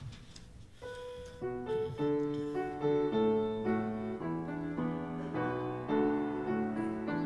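Piano playing the introduction to a sung gospel acclamation: a few single notes about a second in, then a steady run of struck chords that ring and fade.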